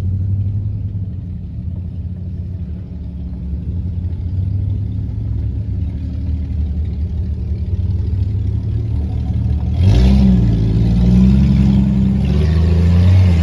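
Vehicle engine running steadily at low revs, then revved hard about ten seconds in, its pitch rising and falling and the sound much louder.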